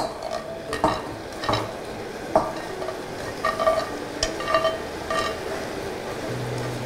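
Fried eggplant pieces scraped off a spatula into a stainless steel saucepan of braising sauce, the spatula knocking and scraping against the pot several times while the sauce sizzles over the flame.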